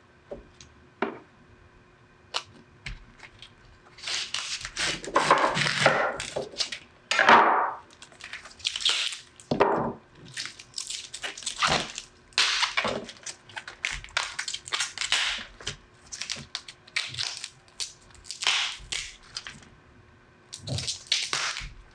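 Crisp green leaves and stalks being snapped and torn off a head of cauliflower by hand: a run of sharp cracking and tearing sounds from about four seconds in, after a few light taps.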